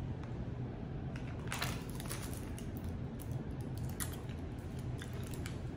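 Faint wet mouth clicks and smacks of someone sucking on a butter-and-cream hard candy, over a low steady hum.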